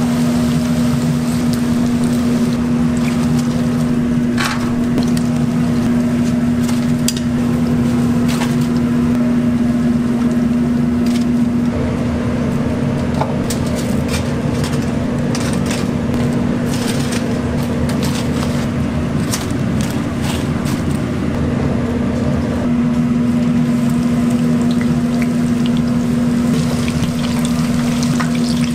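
Steady machine hum in a snack-shop kitchen, with a constant low tone, and scattered clicks and clinks of utensils over it. The hum changes in tone about twelve seconds in and changes back about ten seconds later.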